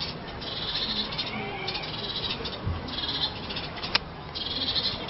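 A domestic cat chirping and chattering at birds in short, rapid high trills, four bursts of about half a second to a second each, with a sharp click about four seconds in.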